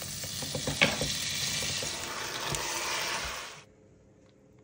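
Butter sizzling as it melts and foams in a hot frying pan, with one sharp click just under a second in. The sizzling cuts off suddenly after about three and a half seconds.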